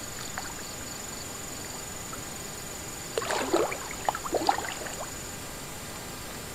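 A burst of water splashing about three seconds in, lasting around two seconds, over a steady high-pitched insect drone.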